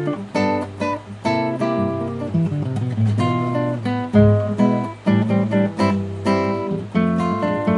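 Frevo de bloco music played by a plucked-string ensemble: a quick melody of guitar notes over strummed chords and a moving bass line.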